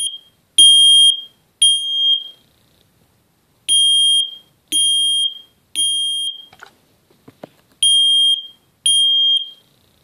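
FireX smoke alarm sounding its test alarm: loud, high-pitched beeps of about half a second each, in the temporal-three pattern of three beeps, a pause, then three again. The last group near the end stops after two beeps.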